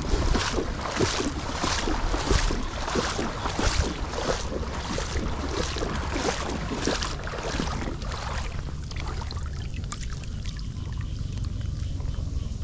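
Footsteps splashing through shallow floodwater on a road, about two steps a second, over steady wind noise on the microphone. The steps stop about eight seconds in, leaving the wash of the water and the wind.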